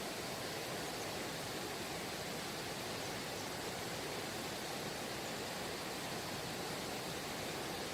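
Steady rushing of a mountain valley stream, an even unbroken hiss with no distinct splashes or other events.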